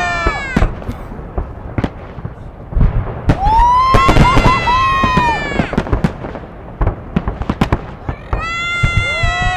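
Fireworks salute: a run of sharp bangs and crackles, with two long high whistling tones, several pitches at once, rising at the start and falling away at the end, the first about three seconds in and the second near the end.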